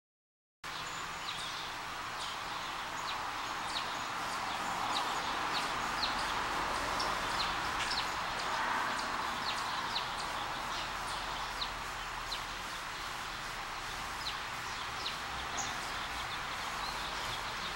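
Birds chirping outdoors: many short, high chirps at an uneven pace over a steady background hiss, starting about half a second in.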